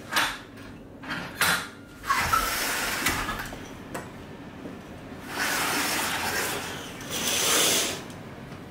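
Sheer curtains being drawn back along their rail: several short swishes and slides, then two longer rustling slides as a glass-paned balcony door is opened.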